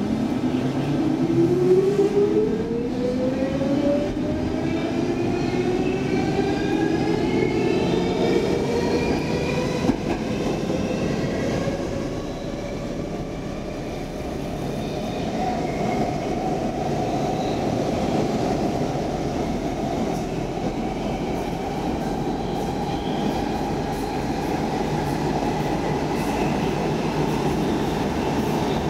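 Stockholm Metro C14 train heard from inside the car, pulling away from a station: the traction motors' whine rises steadily in pitch for the first several seconds, then levels out over the steady rumble of the train running through the tunnel.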